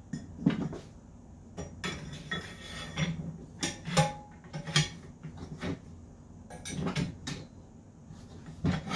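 Metal bars of a steel pinball playfield rotisserie being slid into the end frames and handled on a table: a string of scattered metallic clinks and knocks, with a brief scrape about two seconds in.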